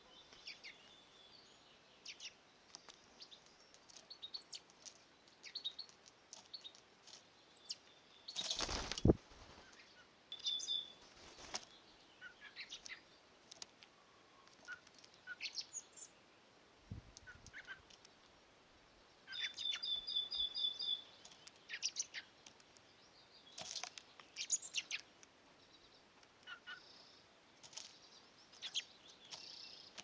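Garden birds calling outdoors: scattered high chirps and a few quick runs of repeated high notes, over faint background noise, with many brief ticks and one louder rush about nine seconds in.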